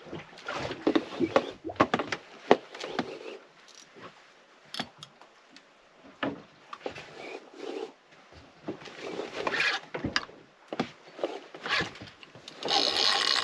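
Spinning reel being wound and a rod being worked against a hooked fish, heard as irregular scrapes, clicks and knocks of reel and fishing gear, with a louder burst of noise about a second before the end.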